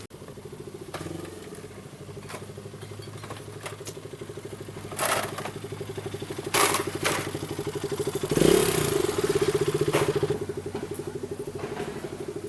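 A vehicle engine running with a rapid pulsing beat, rising in level about two-thirds of the way in, with several clattering knocks and scrapes over it.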